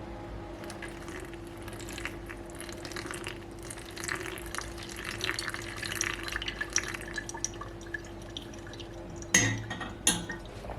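Dripping and trickling water with small glassy clinks over a steady hum, then two sharp knocks near the end.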